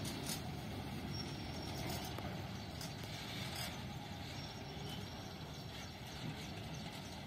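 Freight train wagons and the rear brake van rolling along the track, a steady rumble with a few faint clicks, slowly fading as the train moves away.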